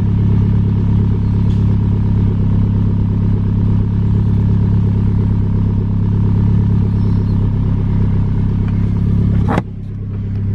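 Mitsubishi Lancer Ralliart's turbocharged four-cylinder idling steadily, heard from inside the cabin, with an electric exhaust cutout whose butterfly valve the owner thinks sits a little off. The sound drops and changes near the end.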